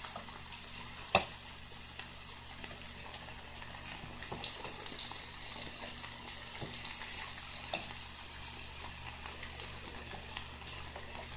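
Pieces of boneless chicken breast sizzling steadily in a black skillet, with a metal fork clicking and scraping on the pan as the pieces are turned; one sharp clink about a second in.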